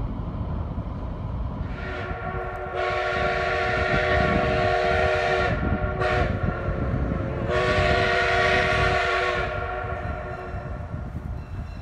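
Robert Dollar #3 steam locomotive's whistle blowing a chord of several notes: one long blast, a short toot, then a second long blast.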